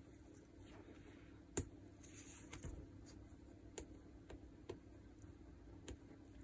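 A handful of sharp, light clicks of small steel rollers from a disassembled rotary hammer's barrel being handled, the loudest about a second and a half in.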